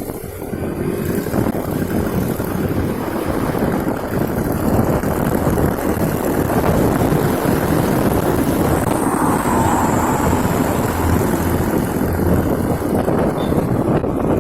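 Motorcycle powered by a car engine running while being ridden on the road, growing a little louder over the first two seconds, with wind noise on the microphone.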